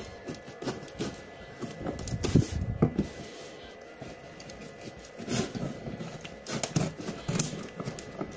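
Scissors cutting through packing tape and cardboard along a box seam: irregular short snips and scratchy rustles, in clusters with brief pauses between.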